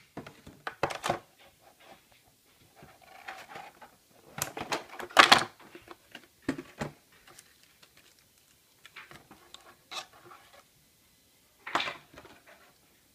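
Clear plastic blister tray of a model airliner being handled and opened: irregular crinkling rustles and sharp clicks of the plastic, loudest about five seconds in.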